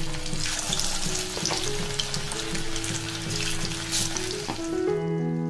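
Marinated chicken pieces going into hot oil in a kadai and deep-frying with a steady sizzle that flares up as pieces drop in. Soft background music plays underneath, and the sizzle drops out near the end.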